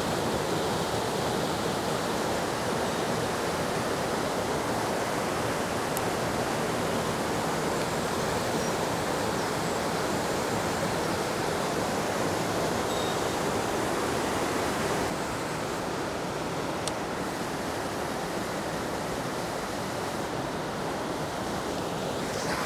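Steady rush of fast-flowing water in a rocky mountain headwater stream, a little quieter about fifteen seconds in.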